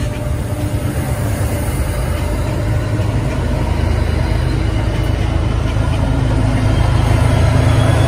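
Diesel commuter-rail locomotive engine running with a deep, steady drone that grows gradually louder.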